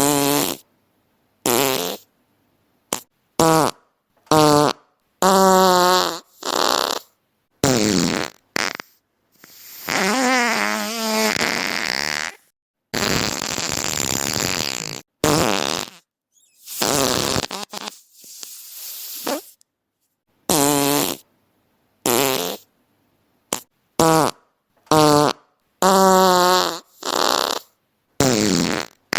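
A rapid series of about twenty fart sounds separated by brief silences. Most are short buzzy blasts whose pitch wobbles, and a few are longer, airier hissing ones.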